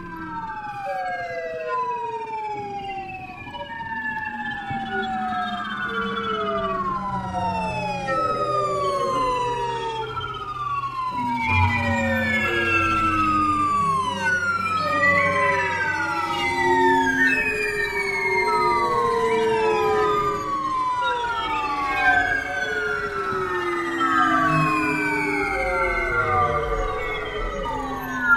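Experimental music from an ensemble playing glass vessels, hoses and strings. Many overlapping siren-like tones slide downward in pitch, thickening and growing louder over a low steady drone that drops deeper about eleven seconds in.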